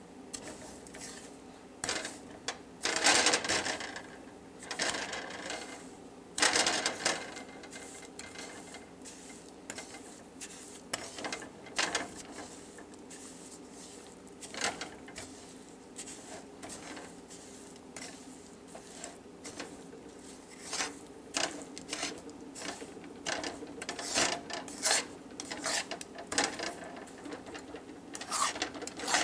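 Spatula stirring and scraping granulated sugar and butter around a nonstick pan: irregular scrapes and knocks that come in clusters and grow busier near the end, over a steady low hum.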